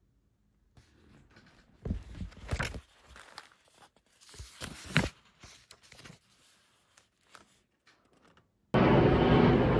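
Irregular rustling and crinkling handling noises with a few sharp clicks. Near the end they give way abruptly to a loud, steady vehicle rumble.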